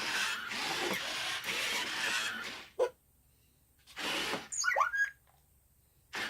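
Roboquad toy robot's gear motors whirring for about two and a half seconds as it moves on its freshly replaced gears, then stopping. A couple of seconds later a short whir and a quick run of chirping electronic tones that slide up and down.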